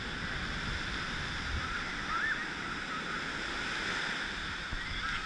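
Steady wash of surf breaking on a sandy beach, with a faint short high call about two seconds in.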